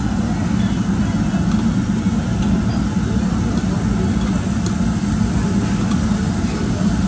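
Steady low rumble of a Korean barbecue table grill's built-in exhaust fan, drawing smoke down through the vented ring, with a hiss of meat sizzling on the grill plate. A few faint clicks of metal tongs are heard.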